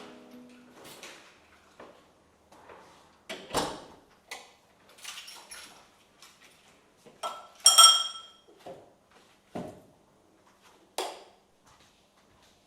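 Dishes and cutlery being handled: scattered knocks and clicks, with one ringing clink of a dish about eight seconds in.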